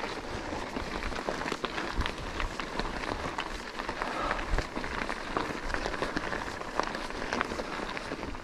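Mountain bike on a loose, stony trail: steady crunching of tyres over gravel, dotted with many small clicks and rattles.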